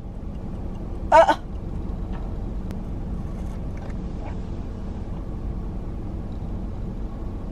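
A steady low rumble, like a running vehicle or machinery, that swells up at the start and then holds, with one short burst of a voice about a second in.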